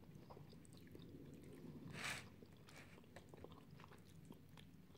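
Faint mouth sounds of a person chewing a spoonful of chicken casserole, with small scattered clicks and a short breathy noise about two seconds in.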